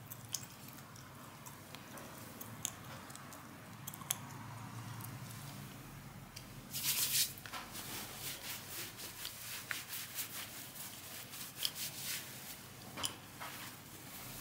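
Cloth bedding being handled: rustling with scattered small clicks, a louder rustle about seven seconds in, then a run of short rustles.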